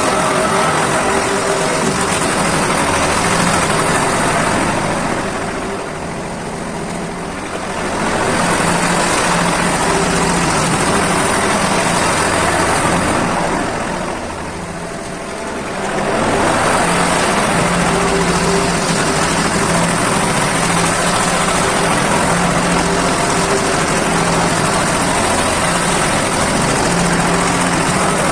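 Agrale tractor's diesel engine running steadily while working a homemade backhoe, easing off twice for two to three seconds, about five and about thirteen seconds in.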